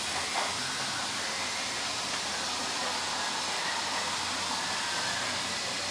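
Steady, even hiss of background air noise in a repair shop, with no distinct knocks or voices.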